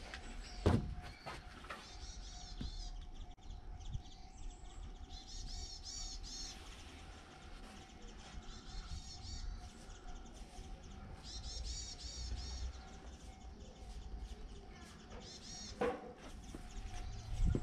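A songbird singing in short bouts of quick, high, repeated chirps every few seconds over a low outdoor rumble, with a faint steady hum and a sharp knock about a second in and another near the end.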